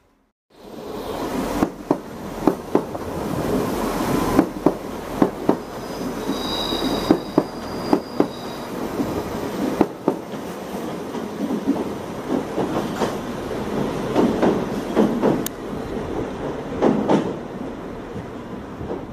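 Irish Rail 22000 Class diesel multiple unit running past close below, a steady rush of wheels on rail punctuated by many sharp clicks as the wheels cross rail joints. A brief high-pitched wheel squeal comes about six seconds in.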